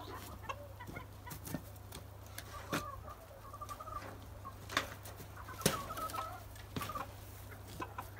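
Hens clucking in short bursts, with scattered sharp clicks and knocks as a wire-mesh aviary door is unlatched and swung open.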